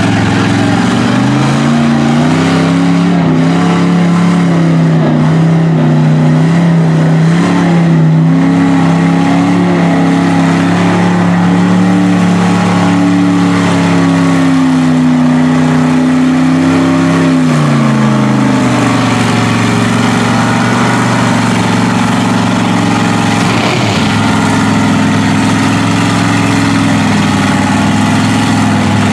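Lifted mud truck's engine running loud as it churns through the mud pit. It revs up about a second in, holds high revs with small rises and dips, then drops back to a lower, steady run about two-thirds of the way through.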